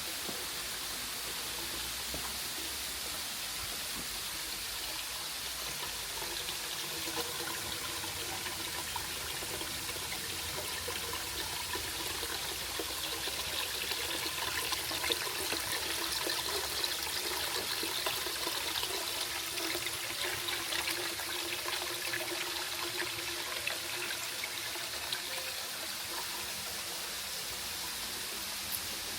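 Waterfall water splashing and trickling steadily, the splashing a little louder in the middle of the stretch.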